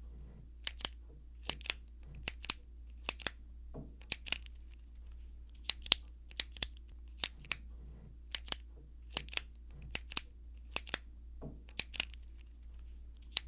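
Retractable pen clicking over and over. Each push gives a quick double click, and the pushes come a little more than once a second.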